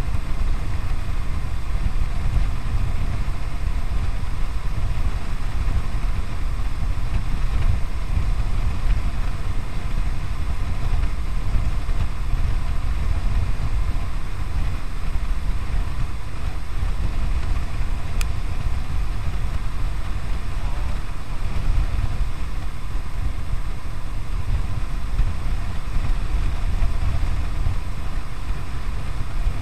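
Kawasaki W800's air-cooled parallel-twin engine running steadily while cruising on the open road, mixed with wind rushing over a chest-mounted action camera's microphone.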